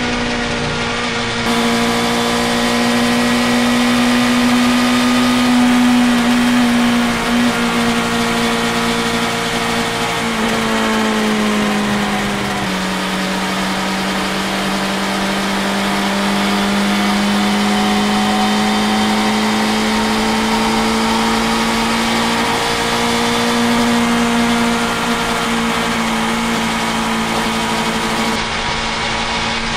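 BMW S1000XR's inline-four engine and exhaust running at cruising speed inside a road tunnel, a steady drone. Its pitch eases down about ten to thirteen seconds in, then climbs slowly back.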